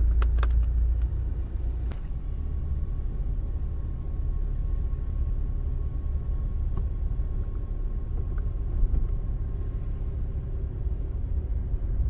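Wind buffeting the phone's microphone as a steady low rumble, with a few sharp clicks in the first two seconds and a faint steady high tone through the middle.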